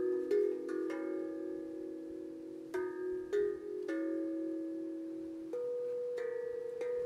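Tank drum (steel tongue drum) played by hand: about eight single notes struck slowly in a calm melody, each ringing on with a slight waver.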